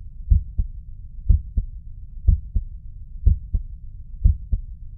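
Human heartbeat heard through a stethoscope on the left side of the chest: a steady lub-dub about once a second, five in all. Each beat is a louder first sound followed closely by a softer second, over a low steady hum.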